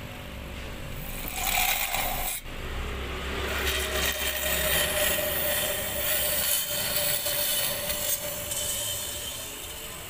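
Fridge compressor running and sucking compressor oil up a hose into its suction line from an open can: a low hum under a raspy hiss of oil and air being drawn in, which swells about a second in.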